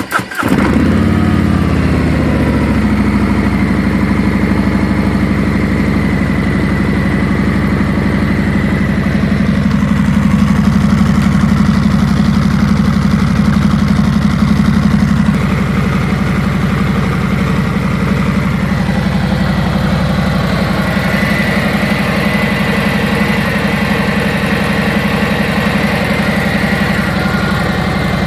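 2017 Harley-Davidson Road King Special's Milwaukee-Eight V-twin on its stock mufflers catching on a cold start, its revs falling over the first few seconds and then holding a steady idle.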